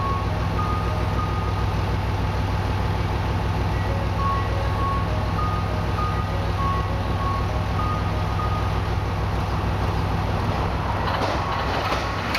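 Diesel railcar engine idling steadily, with short high beeping tones over it. About eleven seconds in, the rumble of an approaching diesel limited express train rises.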